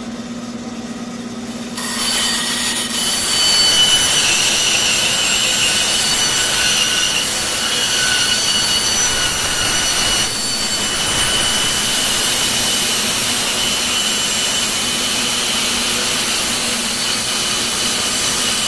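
Bandsaw blade cutting through a wooden box frame. The cut starts about two seconds in, a steady sawing noise with a high whine, which dips briefly about ten seconds in and then carries on.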